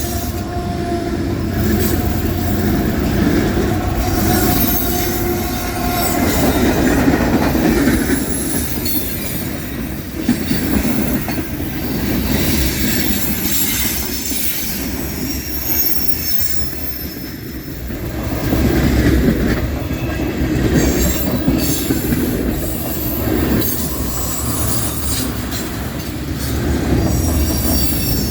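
Freight cars of a long mixed freight train rolling past at moderate speed: a steady rumble with wheels clicking over the rail joints and intermittent high-pitched flange squeal.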